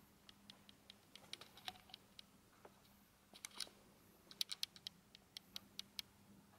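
Faint, irregular light clicks and taps, some in quick clusters of several, over a faint steady low hum.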